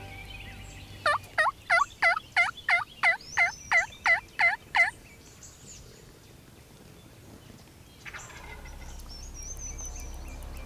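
A run of about a dozen wild-turkey yelps, evenly spaced at about three a second, each a short note that dips and rises again, lasting about four seconds.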